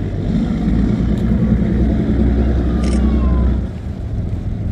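A motor engine running steadily with a low rumble, dropping away sharply about three and a half seconds in.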